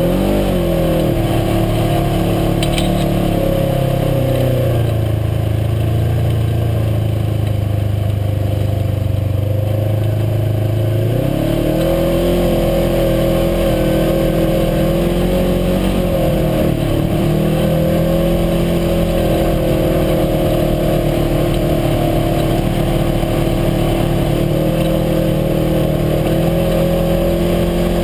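UTV engine running under way: it eases off and holds a lower, steady pitch, then revs up about eleven seconds in and runs on at higher revs.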